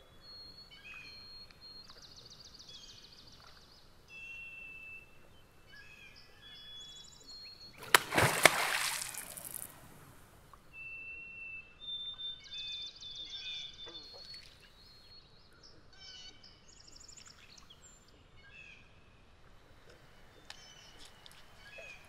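A beaver slaps its tail on the pond's surface once, about eight seconds in: a loud smack followed by about two seconds of splashing. A beaver's tail slap is its alarm signal. Birds sing faintly throughout.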